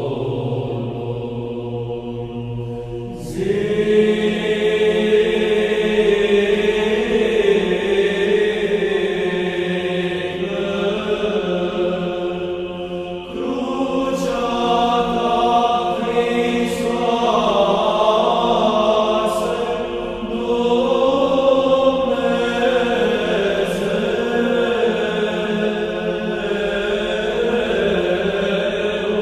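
Orthodox Byzantine chant: voices sing a slow, drawn-out melody over a steady held drone note. It grows louder about three seconds in.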